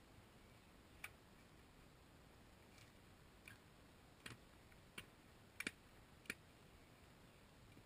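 Narrow spade digging into soil: a handful of short, sharp clicks as the blade strikes dirt and stones, scattered over several seconds, the loudest a quick pair about two-thirds of the way through.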